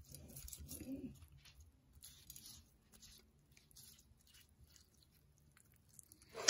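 Faint wet dabbing and squishing of a silicone basting brush spreading Worcestershire sauce over raw steak on a plate, soft and irregular, mostly in the first few seconds.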